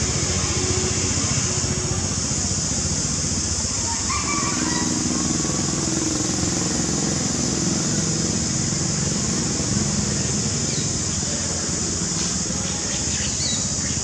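Outdoor ambience: a steady high-pitched hiss over a low rumble of motor traffic, with a few short bird chirps, mostly near the end.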